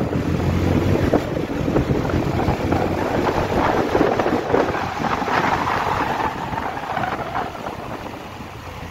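Motorcycle engine accelerating up through the gears, with heavy wind rushing over the microphone. It gets quieter about seven and a half seconds in as the rider eases off.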